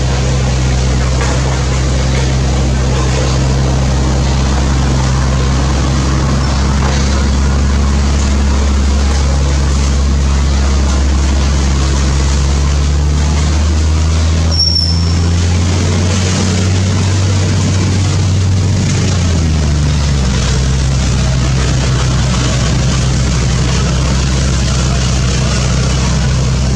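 A loud, steady low engine drone, its pitch shifting and sliding down about two-thirds of the way through. A single short high chirp is heard near the middle.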